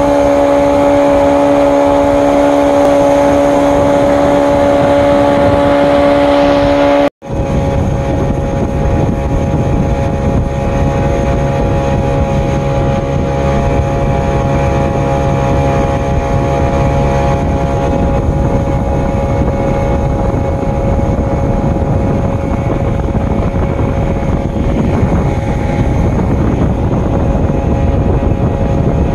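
75 hp Mariner outboard with a jet pump running steadily at speed, the jet throwing spray. About seven seconds in the sound cuts out for an instant, then the outboard runs on steadily at a lower, rumbling pitch.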